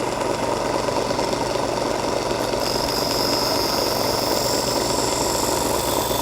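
Bench grinder's motor running steadily; from about two and a half seconds in a high-pitched grinding hiss joins it as the steel lopper blade is held against the grinding wheel to sharpen its edge.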